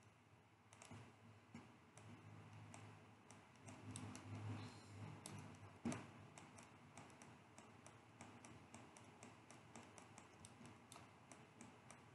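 Faint, scattered clicks of a computer mouse and keyboard, several a second in places, with one sharper click a little before six seconds in and a soft low sound around four to five seconds in.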